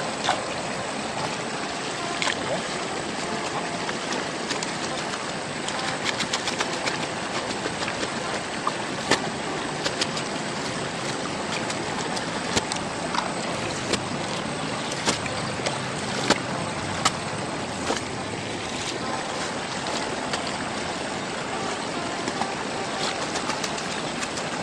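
Steady rush of flowing river water, with many sharp clicks and splashes, most in the middle stretch, as gravel and water are worked by hand on a carpet mat to wash out gold.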